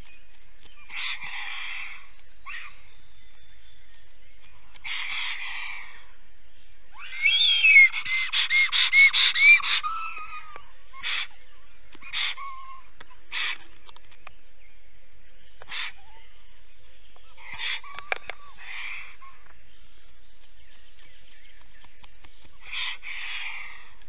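Black stork giving hoarse, hissing calls in rough bursts at the nest, an alarm at a suspected bird of prey. The loudest is a rapid pulsing series about seven seconds in. A small bird's brief high notes come now and then.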